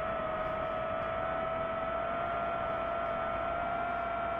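DJI FPV drone's motors and propellers running steadily in forward flight: a constant whine with a higher overtone, its pitch wandering slightly, over a hiss of air noise.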